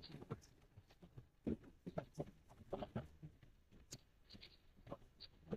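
Faint, irregular footsteps and soft rustling.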